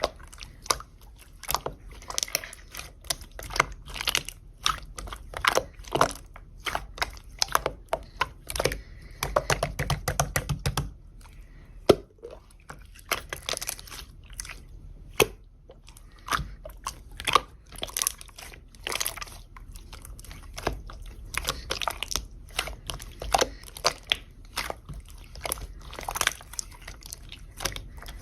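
Clear slime being squished and pressed by hand, giving irregular wet clicks and pops, several a second. About a third of the way in there is a denser, fuller squelch.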